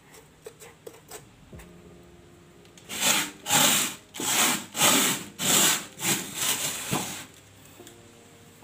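About seven loud, evenly spaced rubbing scrapes, roughly two a second, starting about three seconds in and stopping about seven seconds in.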